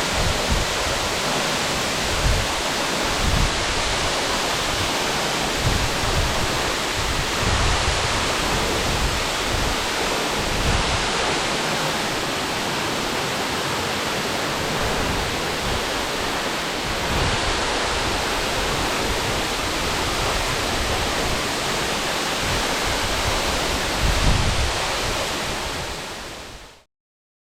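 Waterfall pouring steadily: a dense, even roar of falling water, with now and then a low thump on the microphone. It fades out near the end.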